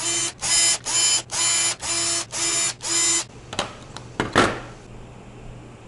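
PC motherboard speaker beeping a fast run of about seven short, buzzy beeps, about two a second, stopping after about three seconds: an error beep code from a computer that fails to boot. Then a click and a brief rustling knock as the board is handled.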